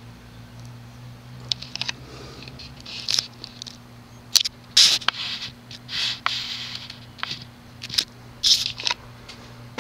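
Quorum Electra ceiling fan running on low speed with a steady low motor hum. Irregular scratching and scraping handling noises sit over it and are the loudest sounds.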